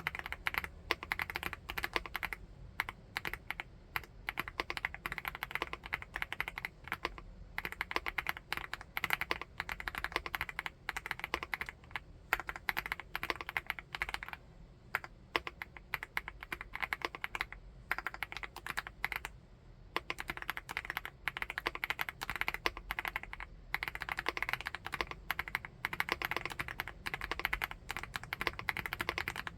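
Continuous fast typing on a 75%-layout full-aluminium keyboard: dense, rapid key clacks, broken by a few short pauses.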